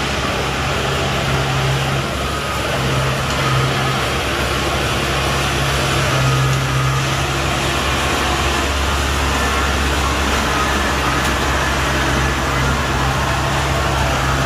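Kubota DC-70G combine harvester's diesel engine running steadily with a strong low hum as the machine is driven on its rubber tracks.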